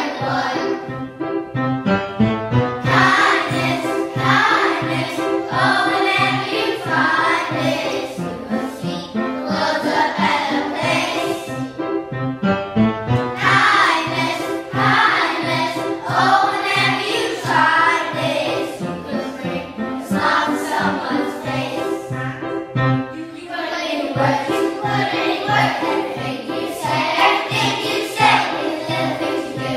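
A class of young children singing a song together in unison, accompanied by an upright piano.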